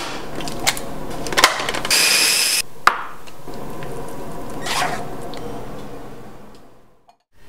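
A small electric food processor running steadily as it purées raspberries, with a couple of sharp clicks. The whirring fades away near the end.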